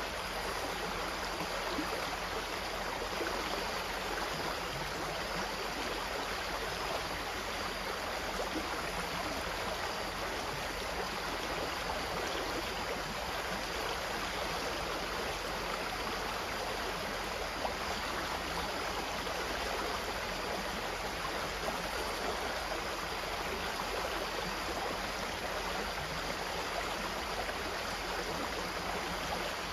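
Water of a stream flowing steadily, an even unbroken rush.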